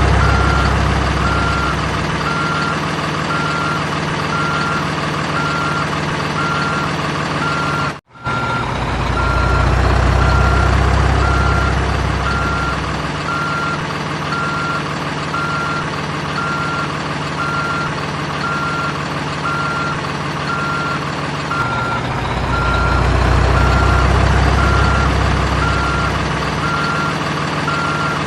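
Heavy-machine engine sound effect running steadily under a repeating reversing-alarm beep. The engine swells louder twice, and the sound cuts out for an instant about a third of the way in.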